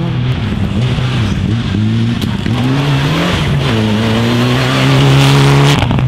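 A rally car approaching at speed on a forest stage. Its engine note climbs about two seconds in, then holds high and steady, getting louder, and cuts off sharply just before the end.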